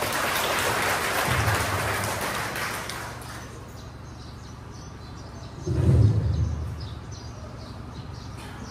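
Background noise of a large hall with a seated crowd. A hiss fades out after about three seconds over a steady low hum, and there is a dull thump about six seconds in.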